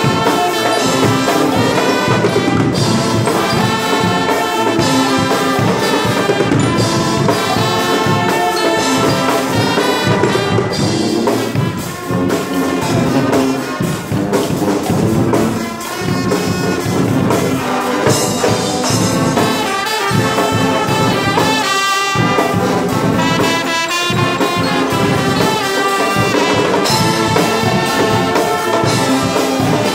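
Guggenmusik carnival band playing live and loud: trumpets, trombones and sousaphones over a drum kit, with a few brief breaks in the music around the middle.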